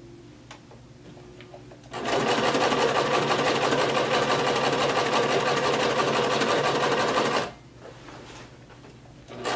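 Electric sewing machine stitching through a folded denim waistband: after a quiet start with a few light clicks, it runs fast and steady for about five seconds, stops, then starts up again just before the end.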